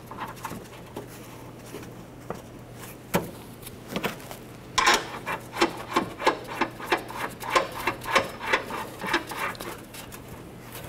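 Gloved hand working in a plastic cowl opening, spinning steel strut-mount nuts onto their studs by hand: a few scattered clicks, then from about halfway through a run of quick rubbing, scraping strokes, about three a second.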